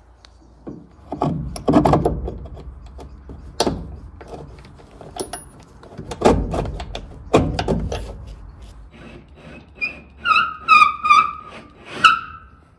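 Knocks and scraping as bolts with washers and rounded nuts are fitted through a wooden fake beam against a steel purlin. Near the end comes a quick run of short, pitched squeaks, about four a second, as a bolt is worked into its tight-fitting hole.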